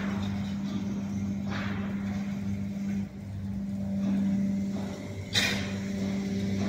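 Steady electric-motor hum of running powder machinery, the screw conveyor and auger powder filler. It dips briefly about three seconds in, and a single sharp clack comes about five and a half seconds in.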